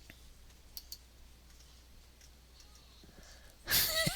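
A few faint, short clicks of a computer mouse, two close together about a second in, with a man's voice starting near the end.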